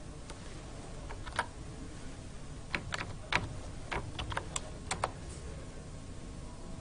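Typing on a computer keyboard: a dozen or so irregular keystrokes as a short command is typed and entered.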